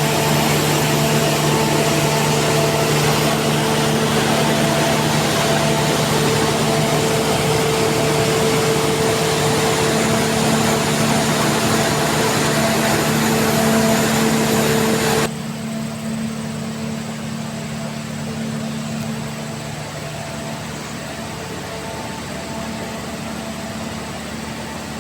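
Steady machinery hum with a broad hiss. About fifteen seconds in, the hiss cuts off suddenly, leaving a quieter, lower hum running on.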